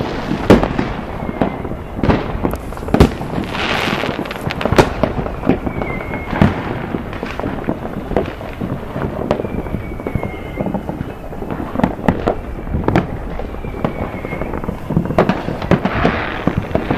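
Fireworks going off: an irregular, rapid run of sharp bangs and pops over continuous crackling.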